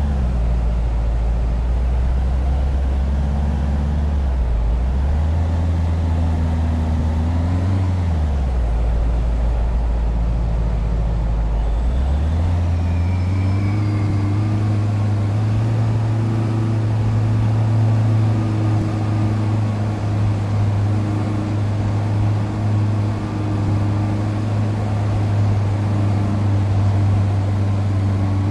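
A vehicle's engine running steadily, its low pitch dipping and rising a few times, then climbing about twelve seconds in and holding at a higher, steady note.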